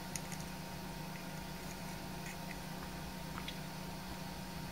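Faint, scattered little clicks and scrapes of fingers handling the small plastic camera assembly as its lens is unthreaded, over a steady low hum.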